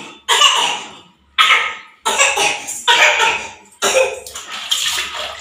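Water splashing during a toddler's bath: a run of about seven short splashes, each starting suddenly and dying away, onto a tiled bathroom floor.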